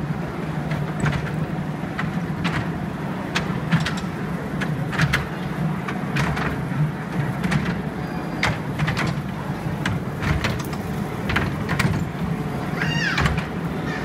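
Kiddie train ride running around its small circular track: a steady low hum from the ride, with the wheels clicking over the rail joints about once a second. Near the end, a brief high squeal rises and falls.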